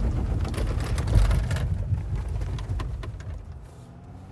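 Mercedes-Benz G-Class climbing concrete stairs, heard inside the cabin: a low rumble from the engine and body with scattered sharp knocks as the wheels ride up the steps. It fades away after about two seconds.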